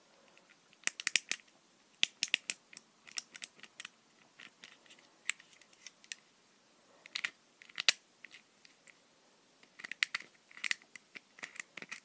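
Plastic buttons of a handheld fidget pad being clicked by a thumb: short, sharp clicks in irregular clusters, a few at a time, with pauses between them.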